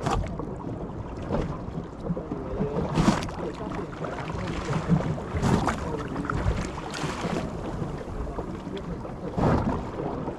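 Wind and water noise on a sea-fishing boat, a steady low rumble with wind buffeting the microphone, broken by a few sharp knocks or slaps every couple of seconds.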